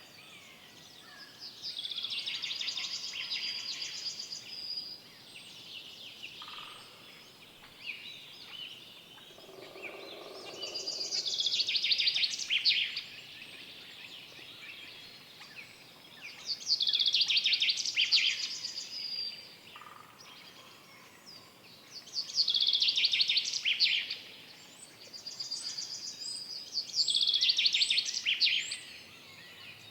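A songbird singing in the forest: five loud, fast-trilled high phrases of two to three seconds each, repeated about every five seconds, over a faint background of other bird calls. A brief lower sound comes about a third of the way in.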